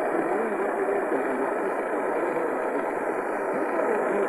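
Sangean PR-D19 portable radio's speaker playing a weak, distant AM station on 700 kHz: steady static hiss with faint voices underneath, too weak to make out.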